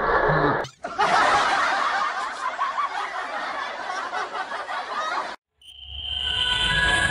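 A group of people laughing and talking over one another, cut off abruptly, and then music with held notes comes in near the end.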